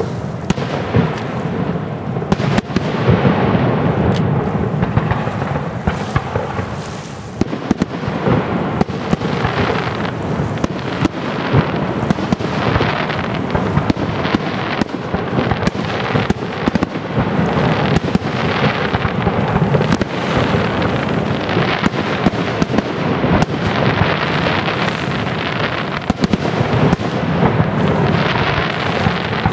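Fireworks display: aerial shells bursting one after another, a dense, almost unbroken run of bangs and booms.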